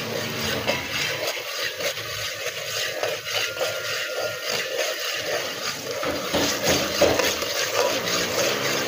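Sliced onions with ginger-garlic frying in hot oil in a metal pot, a steady sizzle with the scrape of a metal slotted spatula stirring through them as the onions turn from pink to brown.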